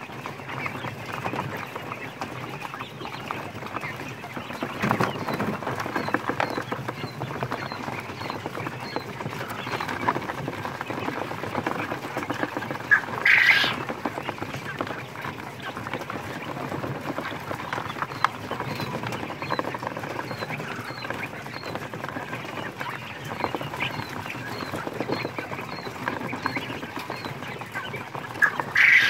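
A flock of domestic quails dust-bathing in a pan of wood ash: a steady scratching, rustling crackle of feathers and ash, with light chirping. Two loud calls stand out, one about halfway through and one at the very end.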